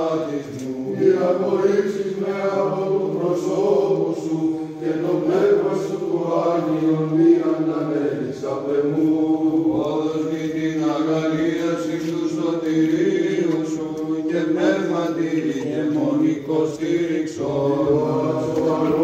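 Byzantine chant: a slow sung melody over a steady held drone note (the ison).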